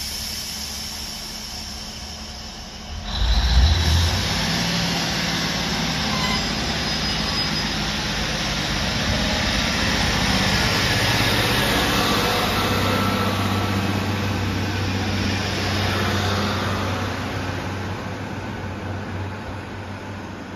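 Class 155 Super Sprinter diesel multiple unit departing. Its underfloor Cummins diesel engines idle at first, then throttle up with a sudden loud rumble about three seconds in. They run steadily as the train pulls away and fade near the end.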